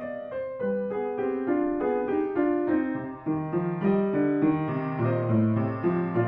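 Background piano music: a gentle melody of single notes moving over held low notes.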